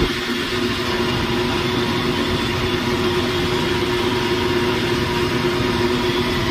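Commercial stainless-steel juice blender motor running steadily at a constant pitch, blending pineapple pieces with water and sugar.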